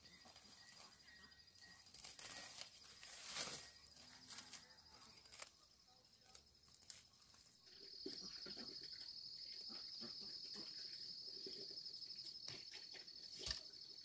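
Insects trilling outdoors: a high, steady pulsing buzz that grows louder about eight seconds in, with a few light knocks and rustles scattered through it.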